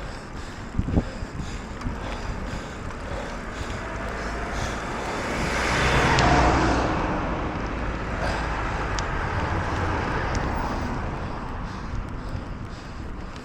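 A vehicle passes: a steady rush that grows louder to a peak about six seconds in and then fades, over wind noise on the microphone.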